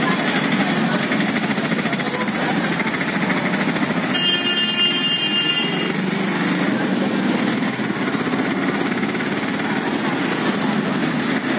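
Motorcycle engine running while riding through a narrow, busy street, with the noise of other motorbikes around. A shrill, high-pitched tone sounds for about two seconds, about four seconds in.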